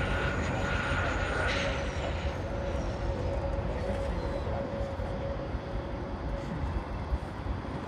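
Jet airliner engines running: a steady rumble with a high whine that falls slowly in pitch a couple of seconds in, and a tone that stops about a second and a half in.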